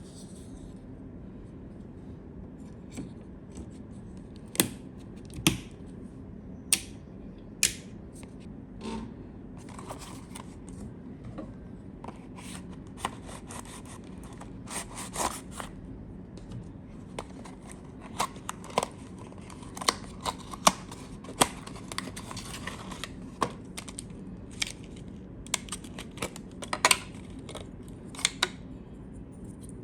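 Hands handling PC components and packaging: many scattered sharp clicks and taps, with stretches of light scraping and rustling.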